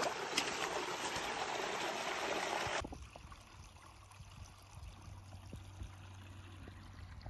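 Running water on a flooded hiking trail, flowing steadily, then cutting off suddenly about three seconds in, leaving only a faint low rumble.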